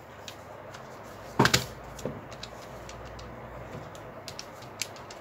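A knock as a Joinus scientific calculator is put down on a clipboard, then a run of small, irregular clicks as its plastic keys are pressed to do a multiplication.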